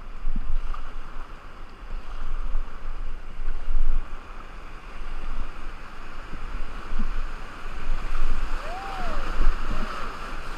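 Rushing river water around a raft, a steady hiss, with wind buffeting the microphone in uneven gusts. A short rising-and-falling tone sounds about nine seconds in.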